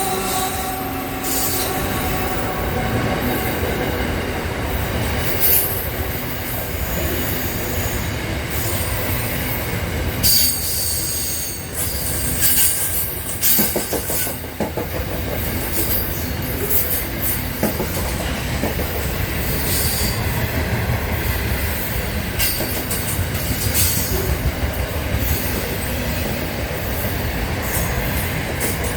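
Train running past with a steady low rumble, its wheels squealing in short, high screeches at intervals, with scattered sharp clicks from the wheels on the track.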